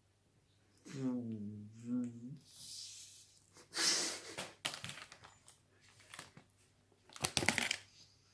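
A person's muffled, closed-mouth hum lasting about a second and a half, then a few short noisy bursts, the loudest about four seconds in and near the end.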